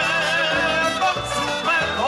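A live Cuban son band playing, with voices singing a wavering melody over the band.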